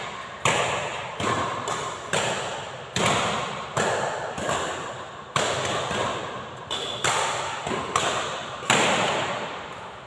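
Badminton rackets striking a shuttlecock during a rally, a sharp crack about once a second, each hit echoing in a large hall.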